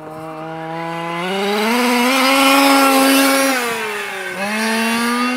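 The two-stroke petrol engine of a Losi 5IVE-T 1:5-scale RC truck revving as the truck drives. Its pitch climbs about a second in and holds, drops just after four seconds, then climbs again near the end.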